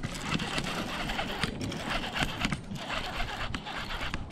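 Close handling noise: hands rubbing and fumbling with a baitcasting rod and reel right by the microphone, a steady scraping rustle with scattered small clicks.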